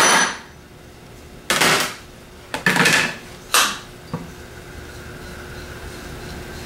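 Hammer blows on a 2x4 laid over the pulley nut, driving the rotor shaft down out of a CS144 alternator's drive-end frame and bearing. There are about four sharp knocks in roughly four seconds, the first the loudest, then a last light tap.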